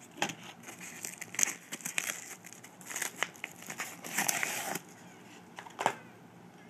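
Packaging being torn and crinkled by hand as a bottle of lighter fluid is opened: irregular crackles and snaps, with a longer crinkling stretch about four seconds in.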